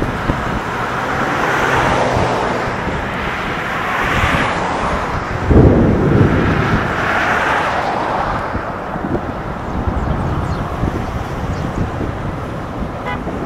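Cars and SUVs passing one after another on a wet road, their tyre hiss swelling and fading with each, over wind gusting on the microphone, with a heavy gust about five and a half seconds in.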